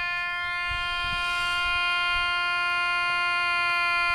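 A steady, buzzy electronic tone from a small transistor radio's speaker, held at one pitch with many overtones. A faint hiss rises about a second in.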